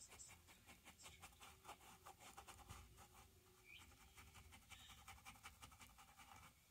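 Faint scratching of a paintbrush on canvas: many quick, short strokes, thinning out near the end.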